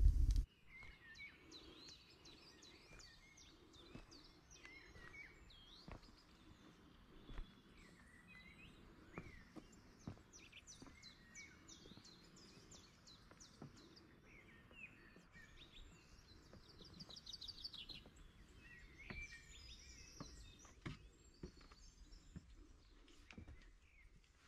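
Small birds chirping and calling, many short quick notes, with scattered faint clicks. A low rumble cuts off about half a second in.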